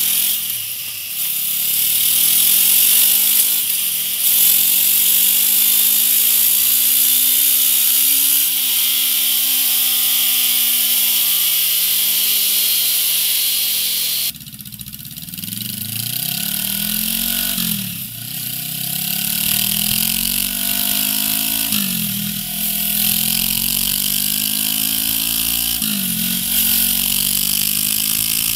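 Honda CB500F 471 cc parallel-twin engine revved on a chassis dyno over a steady high hiss. First it makes one long climb and slow fall through the stock muffler. After a cut about halfway it runs through a MIVV Double Gun slip-on exhaust, with about five quick rev climbs that each drop off sharply.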